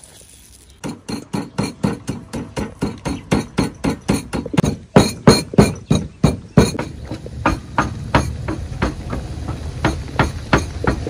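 Wooden pestle pounding dry spice in a stone mortar, striking about four times a second, then more slowly about two-thirds of the way in, over a steady low rumble.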